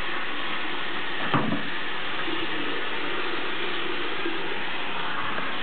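Bathroom sink tap running steadily, with water poured from a cup over a wet kitten. A single sharp knock comes about a second and a half in.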